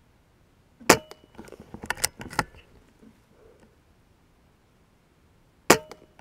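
BSA Ultra SE .22 pre-charged pneumatic air rifle firing twice, about five seconds apart; each shot is a sharp crack with a short metallic ring. Between them, soon after the first shot, a quick run of smaller clicks as the bolt is worked to load the next pellet.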